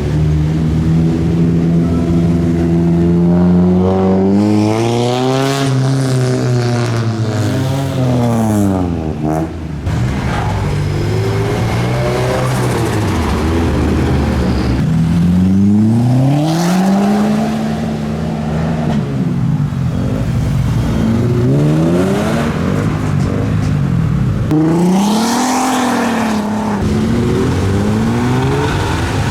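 Modified cars' engines revving and accelerating as they drive off one after another, the engine note climbing and dropping several times.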